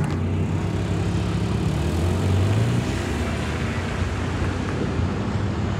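A car moving along a rain-flooded street, heard from inside the car: a steady low engine hum over a wash of road and water noise. The engine hum fades about three seconds in.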